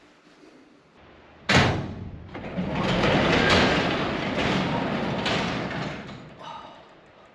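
Sectional overhead garage door being pushed open by hand: a loud clunk as it gets going, then a rattling rumble of the panels running up the tracks for about four seconds before it stops.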